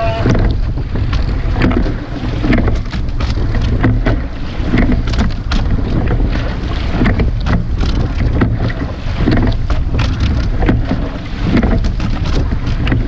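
Rowing shell under way: water rushing along the hull and oar blades splashing, with frequent knocks from the oars and rigging, in a rhythm that swells about every two seconds with each stroke. Wind buffets the microphone throughout.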